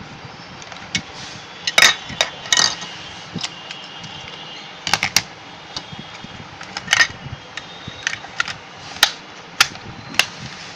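Irregular sharp plastic clicks and taps from handling burglar-alarm hardware, over a steady background hiss.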